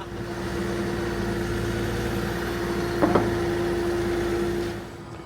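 A motor running steadily with a constant hum and a hiss, cutting off near the end, with a brief knock about three seconds in.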